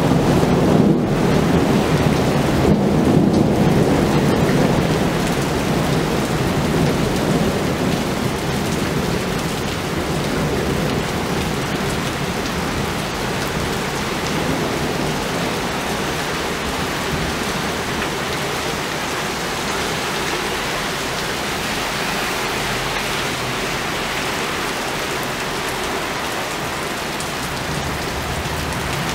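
Heavy rain pouring steadily during a thunderstorm, with a roll of thunder rumbling in the first few seconds and dying away.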